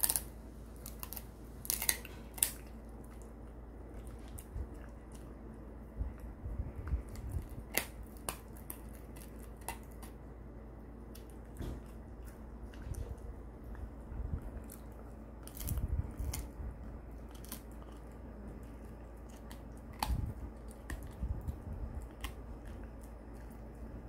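Shiba Inu biting and chewing a large jerky-wrapped bone chew: irregular crunches and sharp clicks of teeth on the hard treat every few seconds, with quieter chewing between them.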